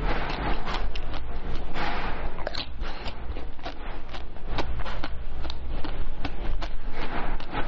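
Biting and chewing frozen basil-seed ice balls: a continuous run of sharp, irregular crunches and crackles.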